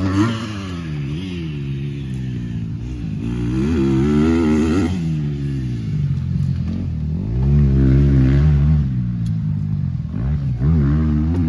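Motocross dirt-bike engines running, their pitch rising and falling as the throttle opens and closes, loudest about two-thirds of the way through.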